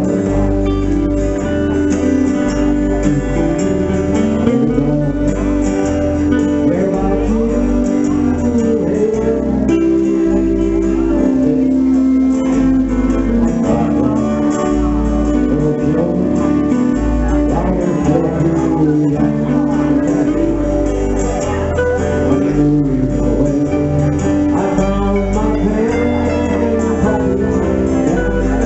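Small live country band playing: two acoustic guitars strumming over an electric bass line that moves note by note, with an electric guitar picking along.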